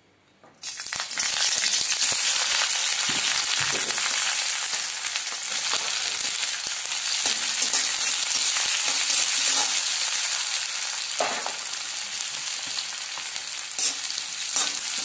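Sliced onions dropped into hot oil in a metal kadhai: a loud sizzle starts suddenly about half a second in and carries on steadily. A metal spatula stirs and scrapes them around the pan, with occasional knocks against the metal.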